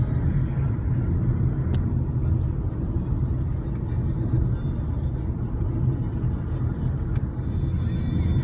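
Steady low roar of water pouring down a waterfall.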